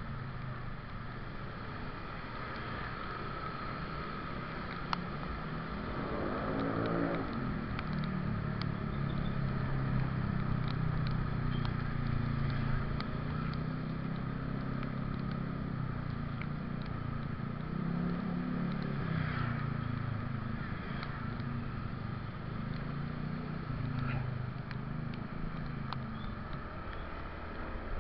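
Motorcycle engine running at low speed in traffic, its note sweeping in pitch about six to seven seconds in and then rising and easing gently.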